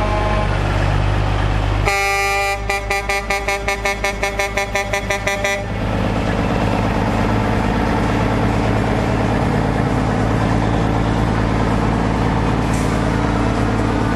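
Truck horn sounding for nearly four seconds, beginning about two seconds in and pulsing in rapid toots about four or five a second, over a steady low engine rumble.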